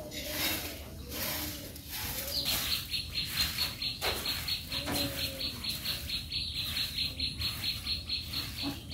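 Hand broom swishing across a bare earth yard in strokes about twice a second, with low cooing calls behind. About two and a half seconds in, a high, rapidly pulsing insect-like trill starts and carries on steadily.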